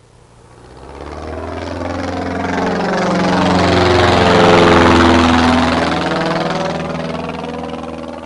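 Airplane flying over: its engine swells to a peak about halfway through, then fades away as the pitch drops.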